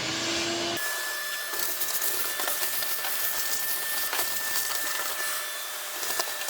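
An electric power tool spins up with a rising whine, then drops in pitch under load about a second in. It runs on with a steady hiss, a thin steady tone and a crackle of grit as it cleans dirt and scale off an old car chassis.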